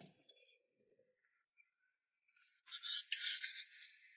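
Rustling and rattling of handled packaging, in a few short bursts with a longer cluster near the end.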